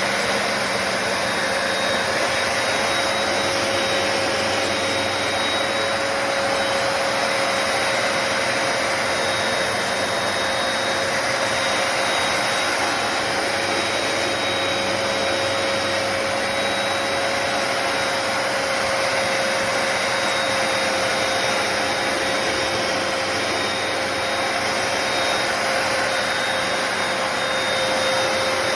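Hoover PowerDash Pet+ compact carpet cleaner's suction motor running steadily, a constant whine over an even rush of air.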